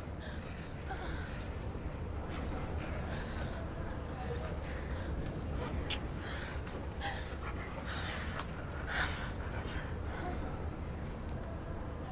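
Crickets trilling steadily on one unbroken high note over a low steady rumble, with a couple of sharp clicks around the middle.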